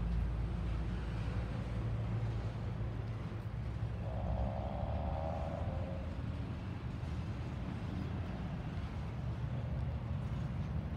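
Double-stack intermodal freight train rolling past on well cars, a steady low rumble of wheels on rail. About four seconds in, a faint squeal rises over it for about two seconds.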